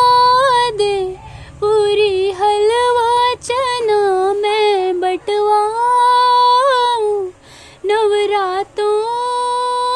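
A woman singing a Hindi devotional bhajan to the Mother Goddess, one voice, in long held, wavering notes with short pauses for breath between phrases.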